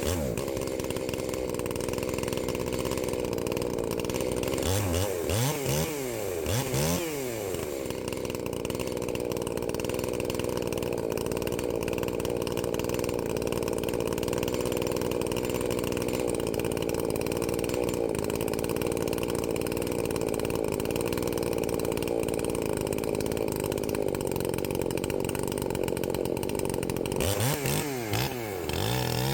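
Gas chainsaw running at high throttle, held steady under load. The engine pitch drops and climbs back up about five seconds in, and again near the end.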